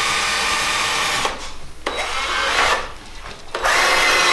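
Electric drill driving screws into the willow-pole chair frame, running with a whine in three bursts: one that stops about a second in, a short one about two seconds in, and another starting near the end.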